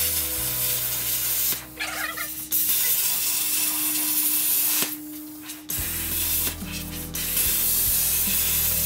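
Hypertherm Powermax30 XP handheld plasma cutter cutting steel, its loud hiss of air and arc coming in four stretches of one to two and a half seconds with short breaks between them.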